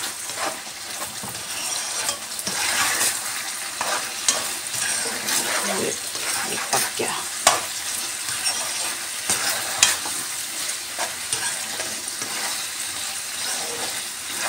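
Deep-fried eggplant and potato pieces sizzling in sauce in a nonstick frying pan over high flame, stirred with a spatula. The spatula makes irregular scrapes and clicks against the pan over a steady sizzle.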